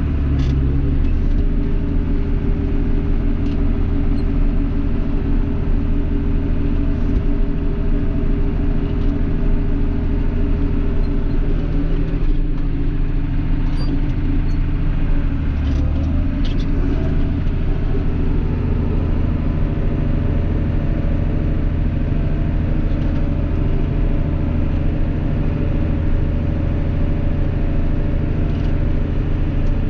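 Tractor engine running steadily under way, heard from inside the cab, with a slight shift in engine pitch about a second in and again around the middle.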